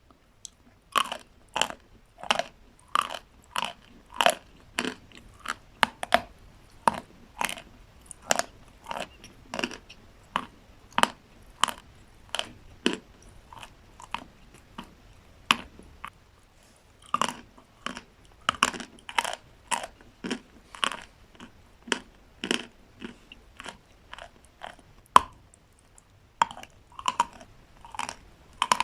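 Chalk with paste being chewed close to the microphone: a steady run of crisp crunches, one every half second or so, with a couple of short pauses.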